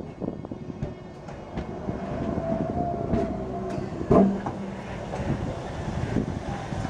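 Euskotren UT 300 series electric multiple unit rolling slowly past on arrival: steady wheel-and-rail rumble with scattered clicks over the rail joints. A short squeal comes about two and a half seconds in, and a loud clunk about four seconds in.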